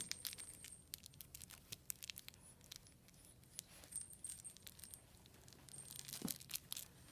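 Faint rustling and light clicks of cats pawing, sniffing and biting a fabric stick toy and a feather toy on a blanket, with a few brief, thin, high tinkles.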